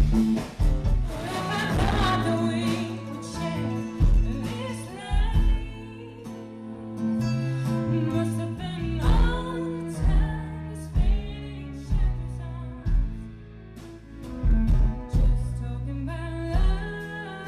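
A band playing a song: a singer's voice over sustained low bass notes and a regular drum beat.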